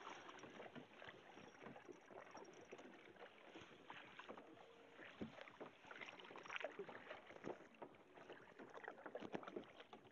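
Faint splashing and small knocks of a kayak on the water, irregular, without a steady paddling rhythm.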